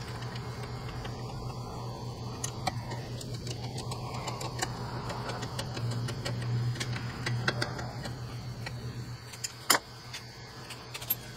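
Scattered light metallic clicks and clinks of a hand wrench working on bolts at the car's condenser mounting, with a sharper knock near the end, over a steady low hum from a shop fan.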